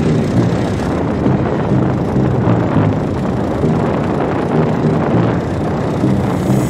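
Loud wind buffeting on a phone microphone while riding in the open air, over a low rumble from the moving vehicle.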